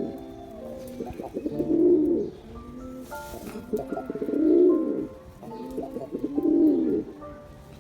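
Male domestic pigeon cooing: three low, rolling coos about two seconds apart, over background music.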